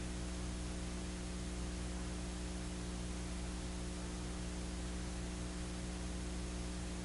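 Steady electrical hum with a layer of hiss, unchanging throughout; no distinct events.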